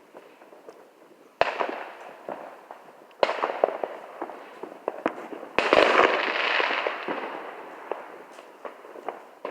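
Fireworks going off: three sharp bangs about a second and a half, three seconds and five and a half seconds in, each followed by dense crackling that fades away. The third bang is the loudest and has the longest crackle.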